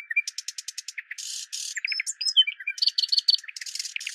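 Birds chirping and twittering: many short high chirps and quick trills, some gliding in pitch, with a few short hissy rushes in between.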